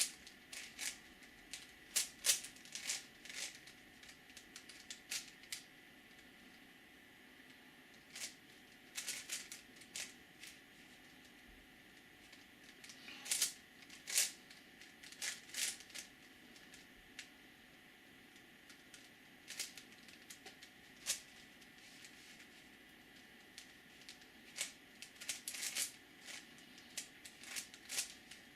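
Plastic 5x5x5 Rubik's cube being turned by hand: bursts of quick clicking and clacking as the layers turn, with pauses of a few seconds between them.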